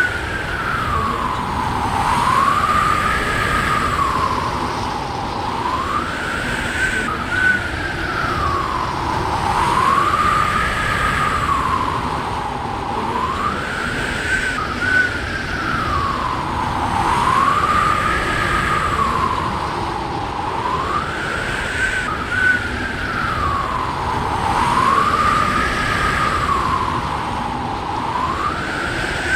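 Hurricane-force wind blowing hard, a dense rushing noise with a howling whistle that rises and falls slowly, about once every four seconds.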